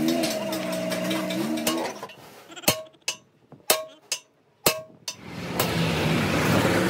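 A vehicle engine running with a wavering pitch, then four sharp metallic clinks, each with a brief ring, over about two seconds; then the steady rumble of road traffic.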